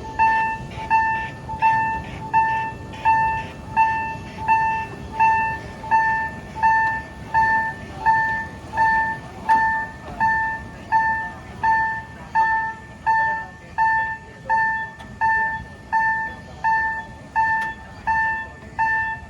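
Japanese level-crossing alarm at a miniature railway, sounding a single-pitched ding repeated evenly about four times every three seconds, over a low steady rumble.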